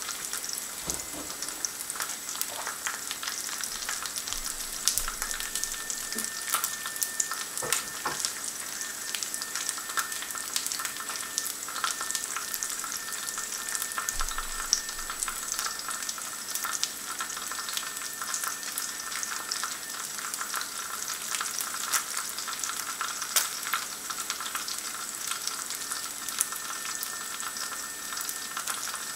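Bacon rashers, black pudding and eggy bread frying in hot fat in a carbon steel frying pan: a steady sizzle with frequent small crackles and spits.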